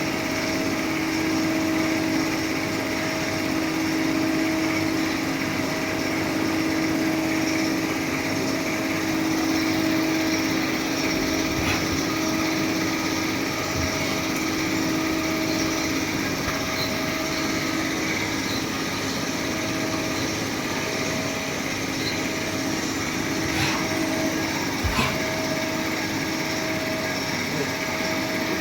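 Jaewoo ART 200 S+ CNC turning centre running: a steady machine hum with a constant whine, and a few faint clicks.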